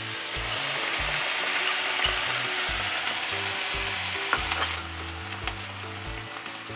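Vegetables and tofu sizzling in a hot frying pan just after a soy sauce, vinegar and sugar mixture has gone in. The sizzle is strongest for the first five seconds or so, then eases. Soft background music with a repeating bass line plays underneath.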